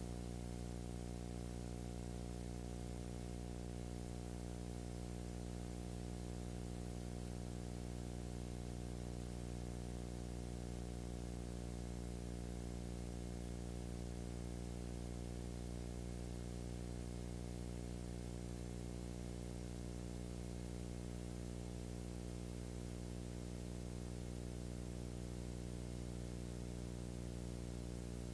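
Steady electrical mains hum with a faint hiss over it, and no other sound: the noise floor of a silent home-movie transfer.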